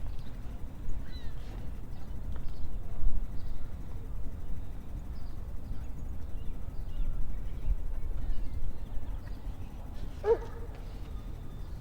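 Outdoor dog park ambience: a steady low rumble with faint bird chirps, and one short dog yelp about ten seconds in.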